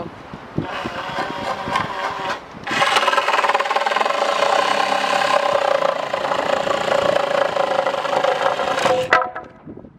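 Makita reciprocating saw cutting through a wooden board. After a couple of seconds of scattered knocks, the saw runs steadily for about six seconds and stops about nine seconds in as the cut finishes.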